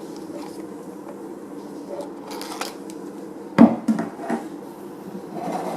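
Hands handling a car air purifier and its headrest strap, with scattered clicks and rustles and one sharp knock about three and a half seconds in, followed by a couple of lighter knocks, over a steady low hum.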